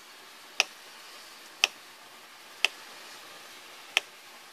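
Four sharp single clicks, about a second apart, during circuit-board testing with a VI-tester probe.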